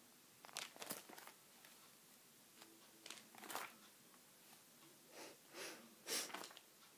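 Clear plastic sheet protectors in a ring binder crinkling and rustling as the pages are handled and turned, in short spells about a second in, around three seconds in, and again near the end.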